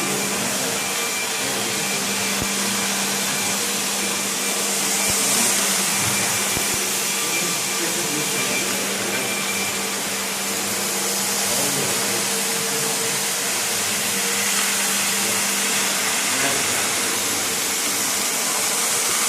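Ride-on floor scrubber-dryer running steadily: its suction motor gives a constant whir over a low, even hum, with no change in pitch.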